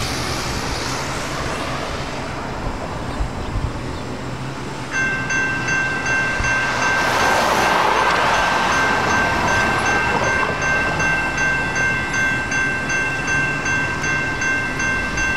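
Railroad grade-crossing warning bell starts ringing about five seconds in and keeps up a steady, evenly pulsed ring. Around the middle a broad rush of noise swells and fades beneath it.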